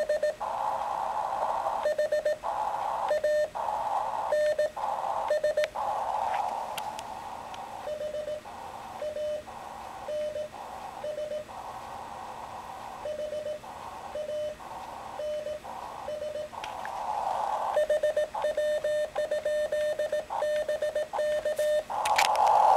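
Morse code being sent on a homebrew low-power (QRP) ham transceiver: a steady-pitched sidetone beep keyed in dots and dashes, with the receiver's band hiss cutting back in between the elements (full break-in). Near the end the keying stops and the receiver hiss runs on alone.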